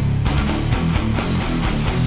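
Heavy distorted electric guitar playing a chugging hardcore riff through a 100-watt Marshall tube amp head.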